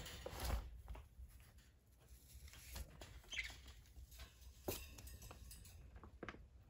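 Quiet rustling with scattered light clicks and taps as a green-cheeked conure is handled and put back into its wire cage, with one brief high squeak about three and a half seconds in.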